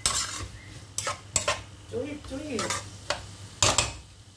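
Plastic spatula stirring and scraping chopped kailan (Chinese kale) around a frying pan, about half a dozen sharp scrapes against the pan over a light sizzle of the stir-fry. The stirring stops near the end.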